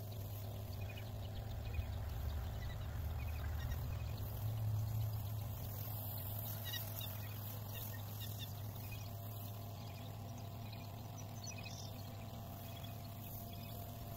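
North Star ATV spot sprayer's 12-volt pump running steadily with a low hum while water sprays from the hose wand.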